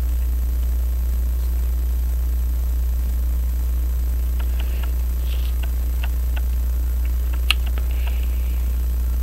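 Steady low hum throughout, with a few faint scattered metal clicks from about halfway in as a taper pin is worked into the brass plates of a Hermle clock movement. One sharper click comes about three quarters of the way through.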